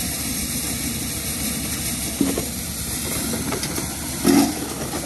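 Tractor engine driving a maize sheller, running steadily. A few short louder sounds come over it, the loudest about four seconds in.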